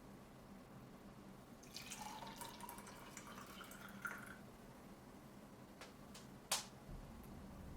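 Liquid poured into a cup or small vessel, its pitch rising as it fills and stopping after about two and a half seconds, followed by a single sharp click.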